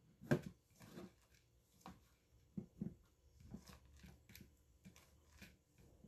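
Hands pressing and patting a raw chicken breast into a plastic tub of grated Parmesan breading: soft, irregular rustles and pats, the loudest about a third of a second in.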